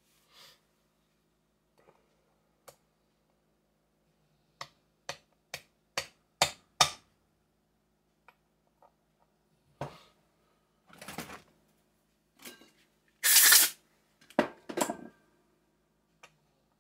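Workbench handling of metal tools and parts during chainsaw crankshaft seal work. About six light, sharp metal taps come quickly in the middle, then a few longer clattering and scraping noises, the loudest about three-quarters of the way through.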